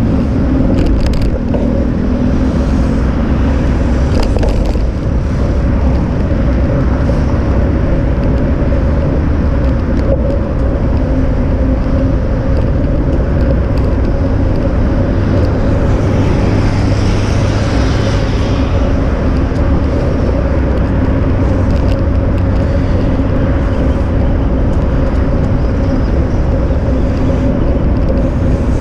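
Steady wind rush and rolling rumble picked up by a moving action camera, with a constant hum running through it. A hiss swells and fades about seventeen seconds in.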